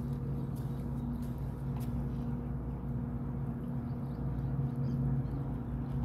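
A distant motor running steadily: an even, low hum with some low rumble under it.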